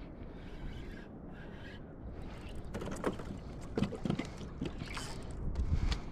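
Steady low wind and water noise at sea, with a handful of sharp knocks and clicks about halfway through, like gear being handled.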